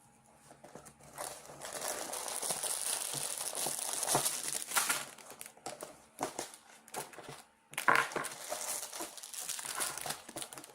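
A Lego set's cardboard box and packaging being opened and handled: crinkling and rustling in two longer stretches, with scattered taps and clicks in between.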